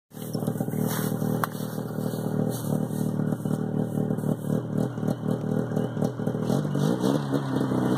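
550 Arctic Cat two-stroke engine running under load, with a steady pulsing note that starts to climb in pitch about two-thirds of the way through as it revs up.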